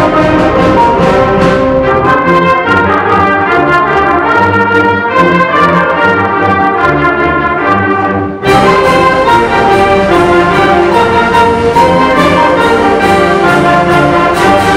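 High school concert band playing, brass to the fore over woodwinds and low brass. A little over halfway through the sound briefly drops away, then the full band comes back in.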